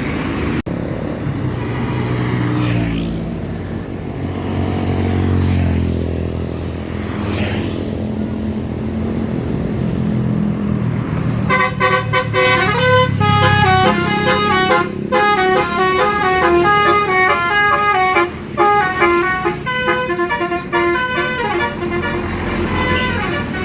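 A bus engine running, its pitch rising and falling for about the first ten seconds, then a multi-tone 'telolet' bus horn plays a fast stepping melody for about ten seconds.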